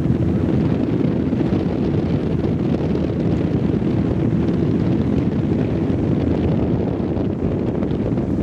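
Wind buffeting the microphone: a steady low rumble with no break.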